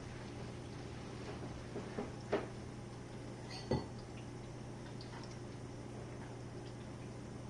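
Jenn-Air dishwasher running its Quick Wash cycle: a steady low hum, with three short clinks of dishes between two and four seconds in.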